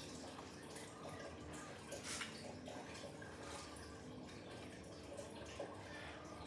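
Water dripping and splashing, with short sharp drips over a steady hiss of running water, and one louder splash about two seconds in.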